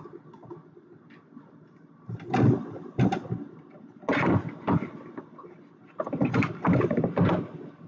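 Several short bursts of handling noise from a digital multimeter and its test probes being handled on the repair bench: one about two seconds in, others at three and four seconds, and a longer stretch near the end.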